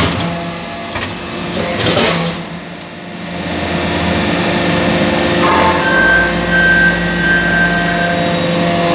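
Hydraulic brass-chip briquetting press running: its hydraulic pump and motor hum and whine steadily, with a sharp knock about two seconds in and a change in the hum about six seconds in as the press moves through its pressing cycle.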